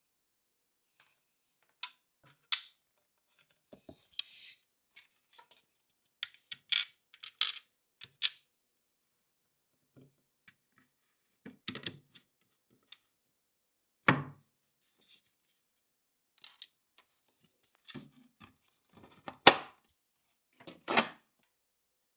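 Hard plastic and metal PC parts being handled and fitted into a 3D-printed case: scattered clicks, taps and clacks, with dead silence between them. A few louder knocks come in the second half.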